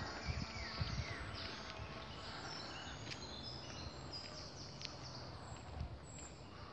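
Woodland birds singing: many short, high chirps and whistled phrases from several birds, over faint outdoor hiss. A few low thuds in the first second.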